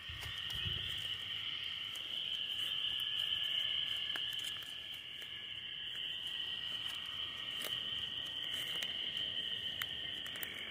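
Steady chorus of night insects, a continuous high-pitched trill that never breaks, with a few faint clicks over it.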